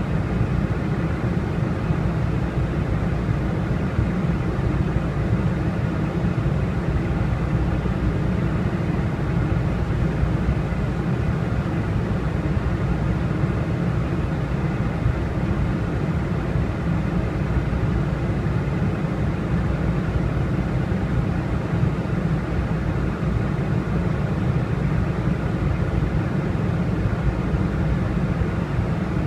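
Steady cabin noise of a Boeing 747-400 in cruise: an even, low rumble of airflow and engines, with a few faint steady tones above it.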